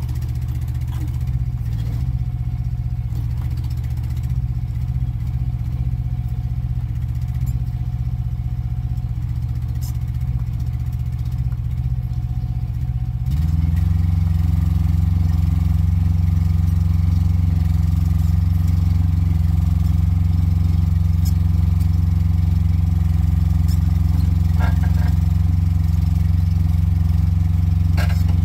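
Small excavator's diesel engine running steadily while it pulls a bent truck frame rail, stepping up to a louder, higher engine speed about halfway through.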